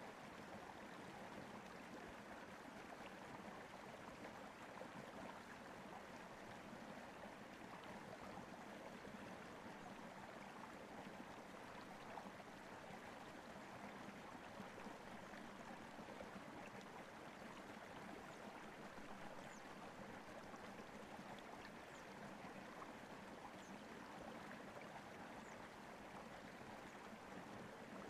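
Faint, steady rushing noise, like running water, with no distinct events apart from a few faint high ticks in the second half.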